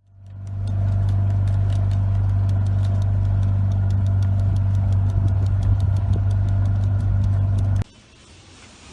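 A steady low machine hum with a fast, even ticking over it, fading in at the start and cutting off abruptly near the end.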